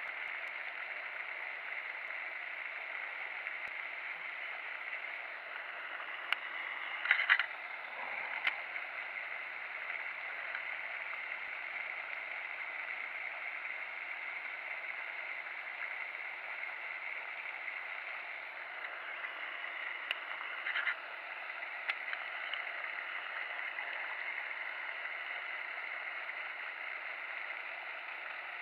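A steady rushing noise, like running water, with brief clicks or knocks standing out about seven seconds in and again around twenty-one seconds in.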